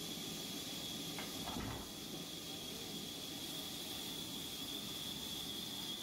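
A sawmill's log saw running idle: a steady hiss with a thin, steady high whine, and one brief low knock about one and a half seconds in.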